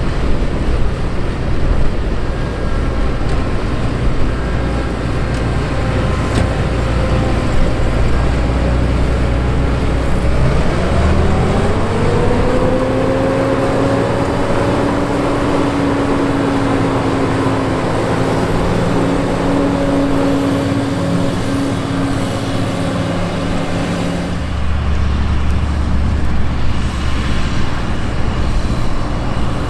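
John Deere 9510 combine harvester running while harvesting wheat, a steady mechanical drone. About ten seconds in, a whine rises in pitch and levels off, holding steady until it cuts off abruptly about five seconds before the end.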